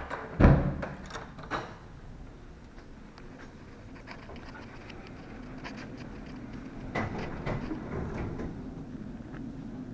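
A door handle clicks and the door thumps open about half a second in, the loudest sound, with a few more clicks just after. Then a steady low hum and the footsteps of someone walking briskly, clearest about seven to eight seconds in. All of it is heard through the Smarson action camera's built-in microphone.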